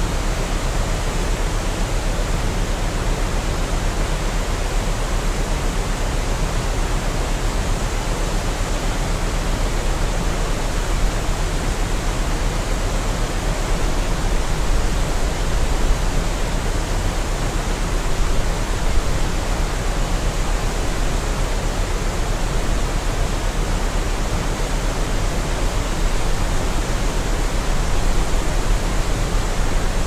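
Waterfall rushing steadily: an even, dense water noise across the range with a heavy deep rumble underneath.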